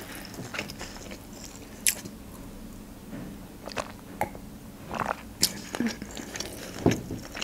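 Close-miked mouth sounds of chewing sushi rolls: soft wet chewing with scattered small clicks. About midway there are a few sipping and swallowing sounds as a drink is taken from a glass.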